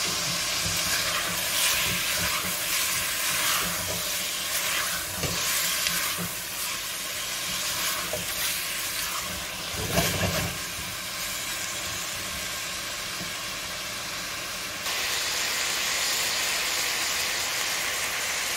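Goat meat sizzling as it fries in oil in a metal pot, the browning (bhuna) stage with garlic, ginger and bay leaves, while a silicone spatula stirs and scrapes through it. A louder thump about ten seconds in, and the sizzle gets louder about fifteen seconds in.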